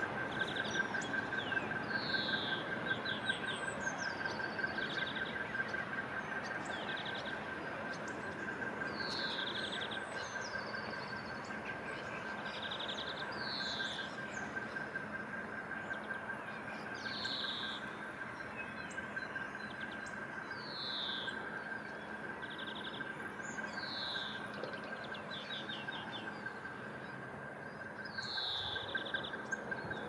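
Small songbirds singing short repeated phrases of quick trills and falling notes, a new phrase every few seconds, over a steady high pulsing whine and a low hum.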